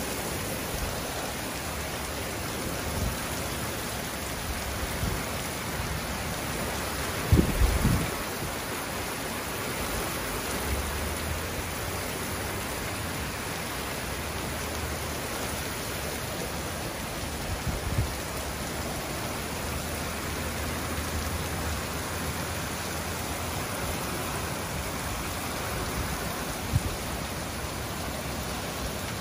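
Steady rain falling, an even constant hiss, with a few brief low thumps, the loudest about seven seconds in.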